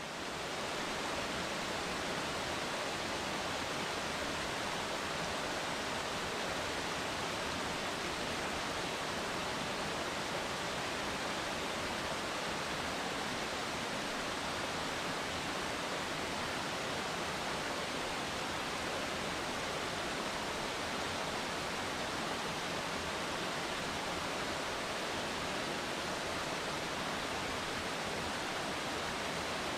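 Steady, even rushing noise that swells up over the first second and then holds level without change.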